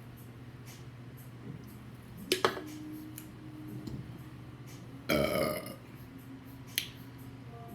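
A woman's loud burp about five seconds in, lasting under a second. Before it, two sharp clicks close together, and one more click near the end.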